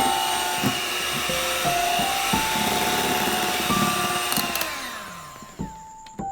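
Electric mixer running steadily, then switched off about four and a half seconds in and spinning down. Soft melodic background music plays over it and is left on its own at the end.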